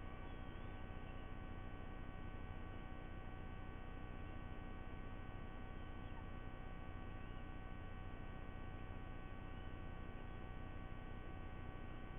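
Steady electrical hum and hiss from a nest camera's audio feed, with several constant whining tones held at one level throughout.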